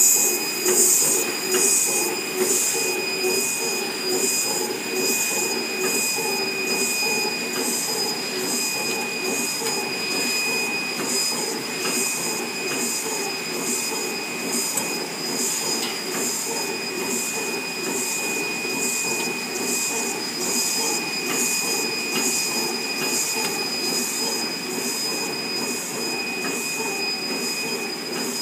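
Automatic candle printing machine running steadily: a continuous mechanical hum with two thin, steady high whines and a rhythmic high-pitched pulsing about twice a second, as the chain conveyor carries the candles through. It is a little louder in the first couple of seconds, then settles to an even level.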